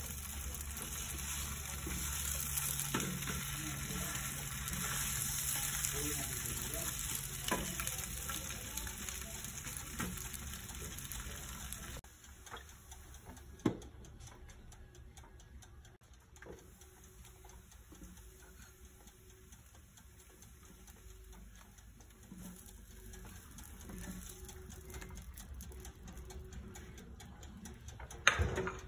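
Sliced meat sizzling on the grill plate of an electric grill, with clicks as tongs turn the slices. About 12 s in the sizzle drops to a much quieter hiss, with the glass cover shut over the meat. A sharp knock comes about 14 s in and another near the end.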